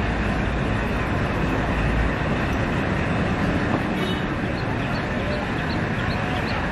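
Passenger train running at the track side, a steady low rumble that is strongest for the first two seconds and then eases. Faint short high chirps repeat about twice a second over it.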